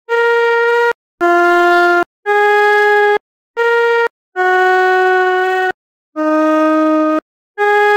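Flute playing a short melody of seven separate held notes at different pitches, each about a second long with brief gaps between.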